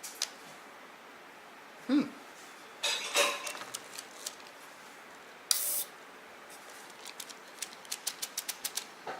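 Scattered sharp plastic clicks and taps, a short hissing whir about five and a half seconds in, and a run of quick clicks, about four a second, near the end: a Traxxas TRX-4 RC truck's locker servos and radio switches being worked while the differential locks are tried.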